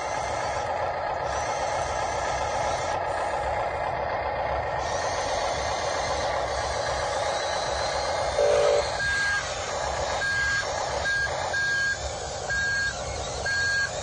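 Electric drive motors and gearboxes of RC construction models (a tracked excavator and a wheel loader) running steadily under load. From about nine seconds in, a reversing beeper sounds a run of short high beeps, roughly one or two a second.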